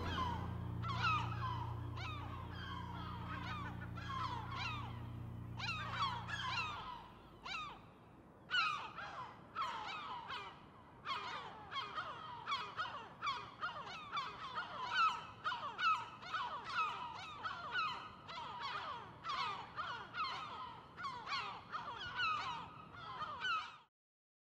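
A low sustained chord fades out over the first seven seconds while a flock of birds calls. The short calls repeat and overlap, gliding in pitch, and cut off suddenly near the end.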